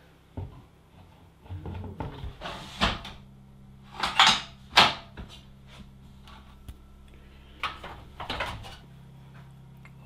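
Several short knocks and scrapes as a black-tailed deer mount is handled and hung on the wall, the loudest a pair just past the middle. A faint low steady hum runs underneath and stops near the end.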